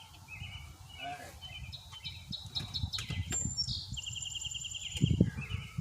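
Songbirds chirping and trilling: short repeated high notes, with a fast trill about four seconds in. Low thumps come in near the end.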